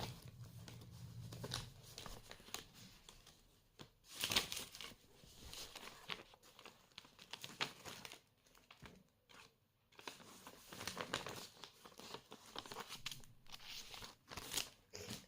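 Plastic toy packaging crinkling and rustling as it is handled, in irregular bursts, loudest about four seconds in.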